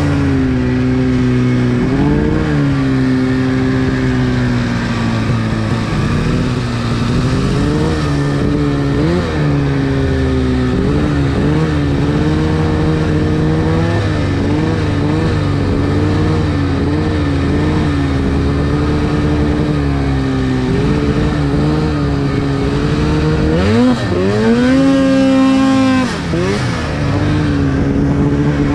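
Snowmobile's two-stroke engine running under way, its pitch wavering as the throttle is worked. A little before the end it revs up sharply, holds high for about two seconds, then drops back.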